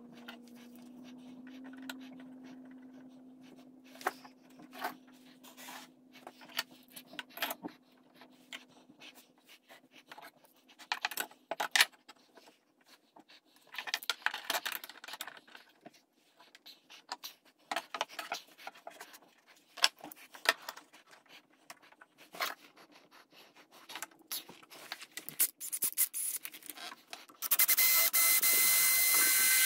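Scattered clicks, knocks and scrapes of clamps being set and tightened on a wooden frame joint, then near the end a cordless drill runs steadily for about two seconds, drilling into the clamped wooden corner.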